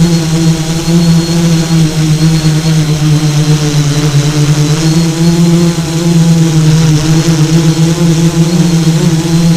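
Electric motors and propellers of an FPV model aircraft running in a loud, steady buzzing hum, the pitch sagging slightly and recovering about four seconds in with a throttle change.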